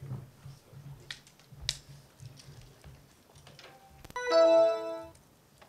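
Faint clicks and light knocks, then about four seconds in a short electronic chime: several steady tones sounding together for about a second before cutting off.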